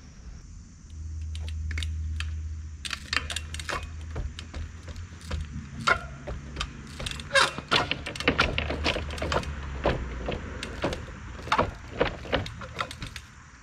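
A 24-inch trials bike hopping on wooden pallets: an irregular run of sharp knocks and clatters as the tyres land on the wood and the chain and frame rattle. A steady low rumble runs in the first few seconds.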